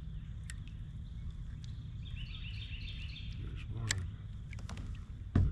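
Steady low background rumble, with a bird singing a quick run of repeated high chirps about two seconds in, and a single sharp thump near the end.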